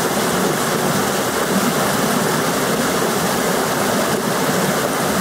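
Steady rush of a shallow mountain river running over boulders and through rapids.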